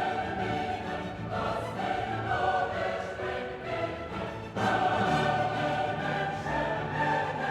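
Background music: a choral piece with sustained sung chords over orchestra, swelling louder about four and a half seconds in.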